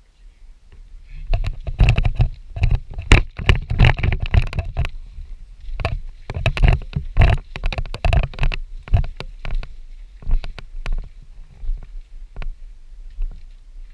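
Footsteps and crunching of gear and brush close to the microphone as a player walks, irregular knocks over a low rumble, busiest in the first half and thinning out toward the end.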